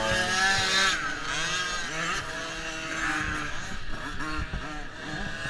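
Several pit bike engines revving as the bikes ride past, their pitch rising and falling over one another as the riders open and close the throttle.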